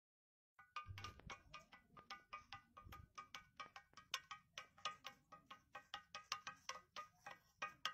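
Gaval dash, Gobustan's flat resting 'tambourine stone', struck in quick, uneven taps. Each tap gives a short clinking ring, several a second.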